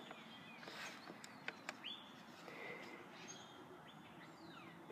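Faint bird chirps and calls over a quiet outdoor background, with a few faint clicks in the first two seconds.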